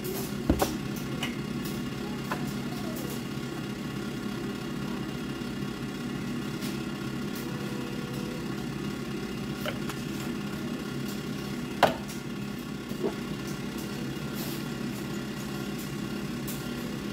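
A steady low mechanical hum from an appliance running in the kitchen. A few clicks and knocks of kitchen items sound over it, with one sharp knock about two-thirds of the way through.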